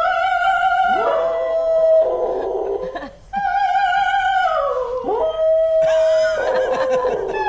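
A woman's operatic singing and a border collie's howling together, in long held notes, some wavering and some gliding down in pitch, with a short break about three seconds in.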